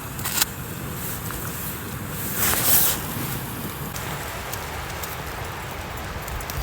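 Backpacking stove burner running steadily under a pot of water at the boil, with a brief louder hiss about two and a half seconds in.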